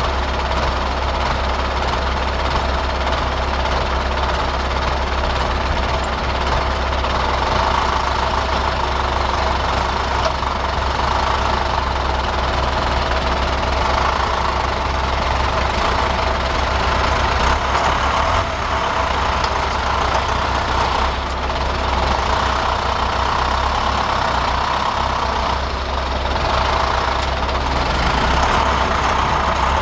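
Farm tractor's diesel engine running steadily at constant speed, with a continuous machinery drone.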